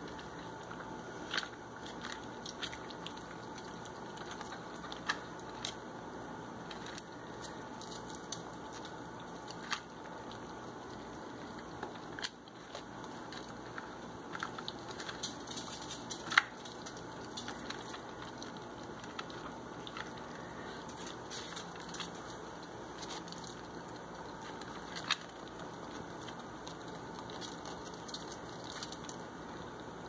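Catit flower-top pet water fountain trickling steadily, with irregular sharp clicks and splashes from ferrets lapping water from its bowl.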